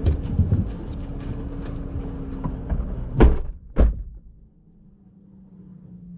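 Car doors being shut: two heavy thunks about half a second apart, the first the loudest, preceded by a few seconds of in-car rustling, small clicks and a low hum.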